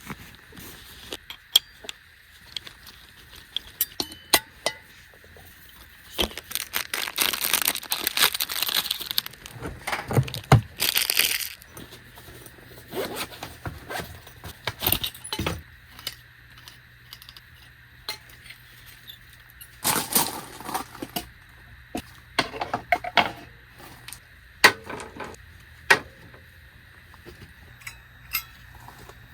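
Gear being handled: scattered clinks, taps and scrapes, with a few longer rustling stretches.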